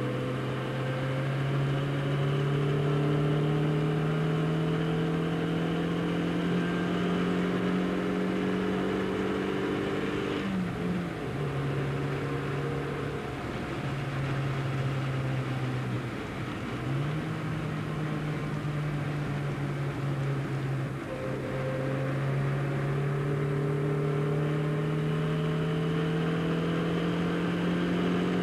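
Tuned 1275cc four-cylinder engine of a 1969 Austin-Healey Sprite with a large-bore exhaust, heard from inside the cabin, pulling hard with its note rising steadily under a constant hiss. The note drops sharply at a gear change about ten seconds in, breaks briefly again about sixteen seconds in, then climbs once more.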